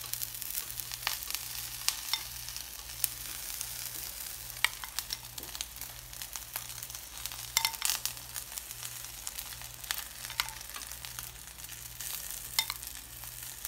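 Instant noodles frying in a nonstick pan with a steady sizzle, while beaten egg is spooned over them: scattered light clicks of a metal spoon against the ceramic bowl and the pan.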